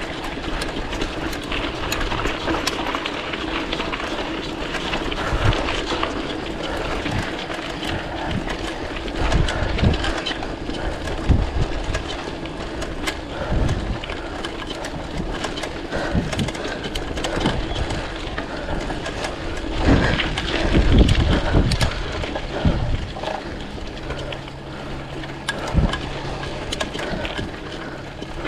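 Mountain bike riding over a rough dirt track, heard from a handlebar-mounted camera: steady tyre and riding noise with frequent rattles and knocks from the bike, a steady hum underneath, and low thumps of wind buffeting the microphone.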